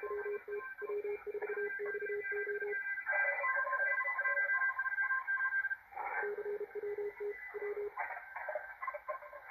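Many Morse code (CW) signals from a 40-metre amateur-band pileup, heard through a Malachite DSP SDR receiver: overlapping on-off beeps at several different pitches over band hiss, many stations keying at once. The lowest-pitched signal pauses for a few seconds in the middle and then resumes.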